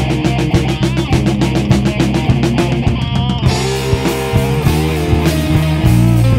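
Rock music played by a band on electric guitar, bass guitar and drum kit, with no singing. A fast, even drum beat drives the first part; about three and a half seconds in the drumming opens up and a bending guitar line comes forward.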